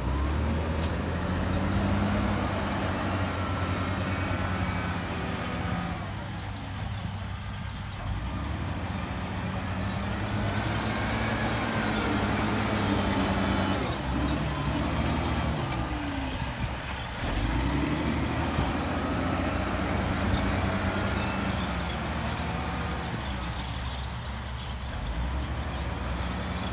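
Diesel engines of heavy earthmoving machinery running steadily, their pitch sagging and recovering in a repeating cycle about every eight to nine seconds as the machine works under load.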